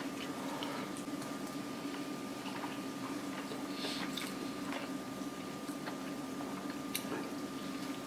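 A person chewing smoked chicken close to the microphone: faint wet mouth sounds and small scattered clicks over a steady low hum with a thin, faint whine.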